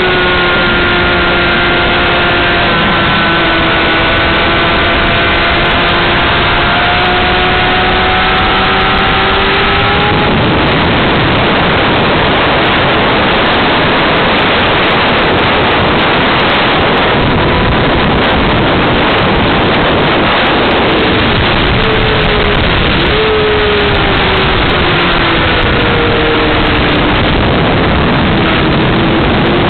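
Honda CBR600RR's inline-four engine running at speed under heavy wind noise on the microphone. The engine note climbs slowly for the first ten seconds or so, then the rushing wind drowns it out. In the last third the engine note comes back, dropping and rising in pitch.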